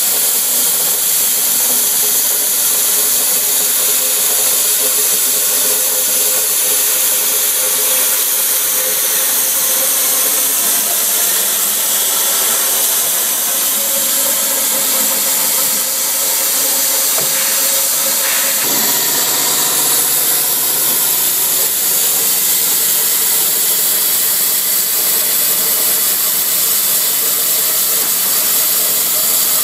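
Torch of a KASRY CNC pipe-cutting machine cutting a rotating steel pipe: a loud, steady hiss with a faint machine hum under it. The sound changes abruptly about two-thirds of the way through.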